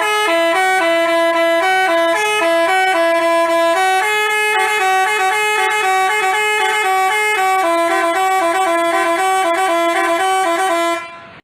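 Basuri telolet bus horn playing a fast tune of short stepped notes, cutting off near the end.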